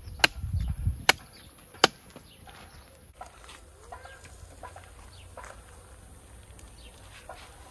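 Dry wooden stick snapped by hand into pieces: three sharp cracks in the first two seconds, with some dull knocks of the wood around the first.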